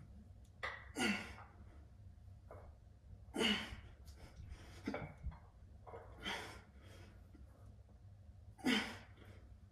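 Forceful exhalations through the mouth, one about every two and a half seconds, in time with the reps of a set of bicep curls, over a steady low hum.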